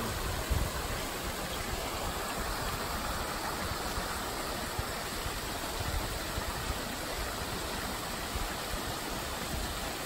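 A rocky creek rushing steadily.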